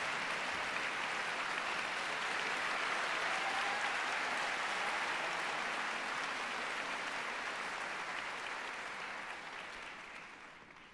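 Audience applauding steadily in a concert hall, the clapping dying away near the end.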